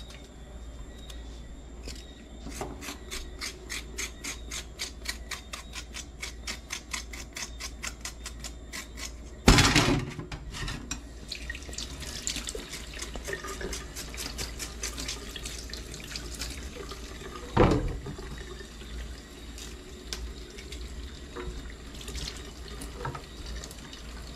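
A knife chopping on a cutting board, about four even cuts a second, then a kitchen tap running into a stainless steel sink, with two loud knocks about ten and eighteen seconds in.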